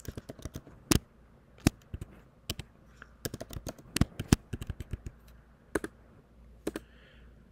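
Typing on a computer keyboard as a username and password are entered: irregular key clicks, a few louder than the rest.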